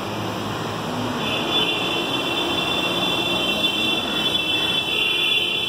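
Steady din of road traffic, with a long high-pitched tone that starts about a second in and holds for several seconds.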